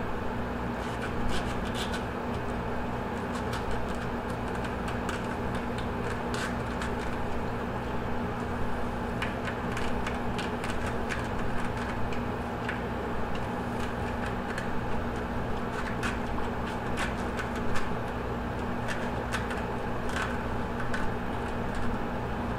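Small knife worked back and forth under a largemouth bass's skin toward the tail, separating skin from flesh, with scattered faint clicks and scratches over a steady background hum.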